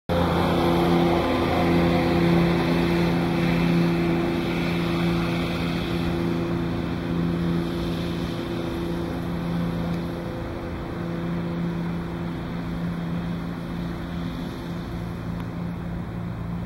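Steady low drone of a running engine or motor, with an even rush of wind on the microphone; it eases off slightly toward the end.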